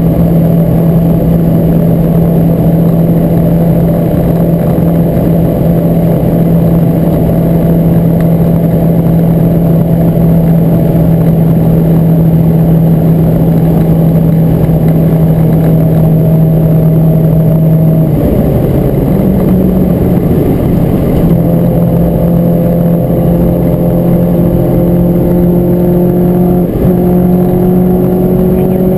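Renault Clio 172 Cup's 2.0-litre four-cylinder engine running hard at a steady pitch, loud inside the cabin over road and tyre noise. About two-thirds of the way through the note breaks briefly, then comes back and climbs slowly as the car pulls.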